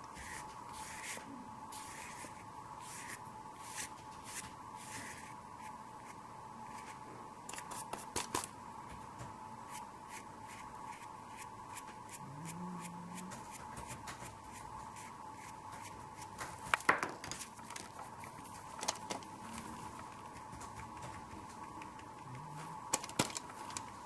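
Paintbrush bristles scratching acrylic paint onto paper in short strokes, with a few sharper taps, over a steady faint whine.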